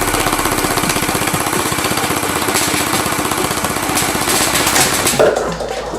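Electric gel blaster firing on full auto: a continuous rapid rattle of shots, many a second, with no break.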